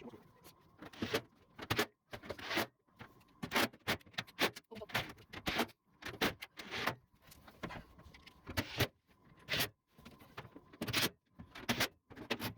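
Irregular clattering, rattling and scraping of a metal panel, screws and tools being handled, in many short knocks and rattles several times a second.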